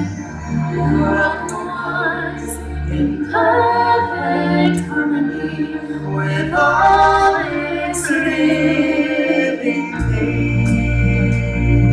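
Live show music: singers holding long, wavering notes in several phrases over a soft backing, and a deep sustained bass chord comes in near the end.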